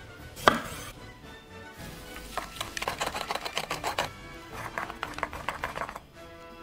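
Chopsticks briskly whisking a thick fermented-rice sauce in a small bowl. They click rapidly against the bowl with wet stirring, in two runs, the first starting about two seconds in and the second just after the fourth second. A single sharp knock comes about half a second in.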